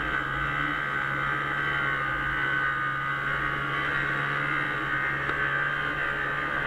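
Arctic Cat Bearcat 340 snowmobile's two-stroke engine running steadily under way, holding an even pitch and level.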